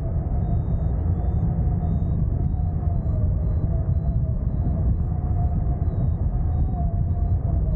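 Airflow rushing over the wing-mounted camera's microphone on a hang glider in flight: a steady, heavy, low rumble. A faint tone that wavers slightly in pitch runs through it.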